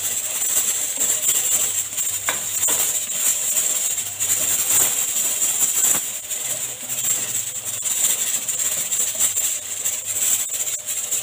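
Chopped garlic sizzling in hot oil in a pan: a steady frying hiss with scattered small crackles.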